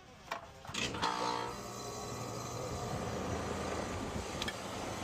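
A steady machine hum begins about a second in after a short clatter and runs on evenly.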